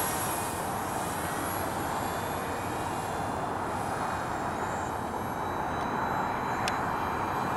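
RC parkjet's small electric motor and pusher propeller running in flight overhead: a steady whirring drone with a faint high whine.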